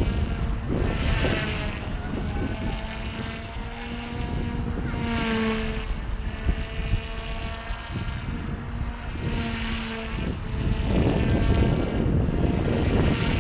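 OMPHOBBY M2 mini electric RC helicopter in flight: the whine of its dual brushless direct-drive motors and rotors, bending up and down in pitch as the throttle and blade pitch change. A louder swish comes about every four seconds as the helicopter circles. Wind buffets the microphone.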